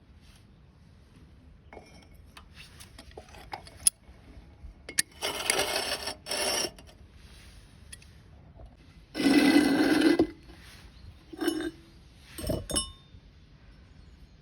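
Metalworking noises: short scraping or rasping strokes on metal, two longer ones, among clicks and a few bright metallic clinks near the end.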